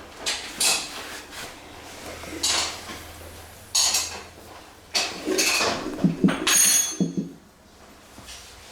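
Metal objects clinking and knocking against each other several times, with a brief metallic ring about seven seconds in.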